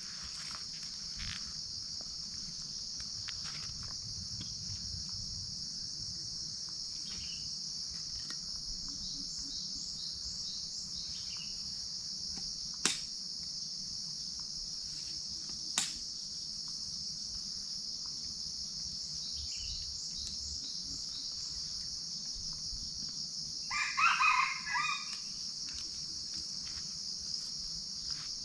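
Steady high-pitched drone of crickets and other insects, with two sharp clicks in the middle and, near the end, a red junglefowl crowing once, briefly.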